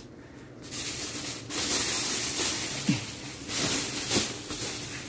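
Loose plastic protective sheeting rustling and crinkling close to the microphone, in a few uneven bouts.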